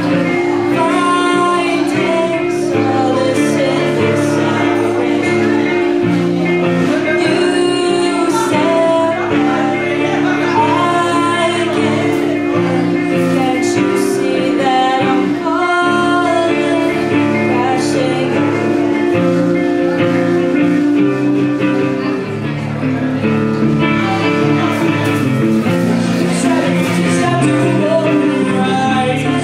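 A song performed live: a singer's voice carrying the melody over acoustic guitar accompaniment, with the band's other guitar underneath.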